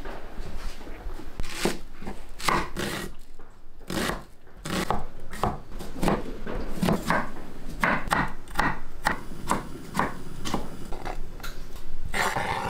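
Knife chopping food on a cutting board: a run of short, uneven strokes about two a second, with a brief pause a few seconds in.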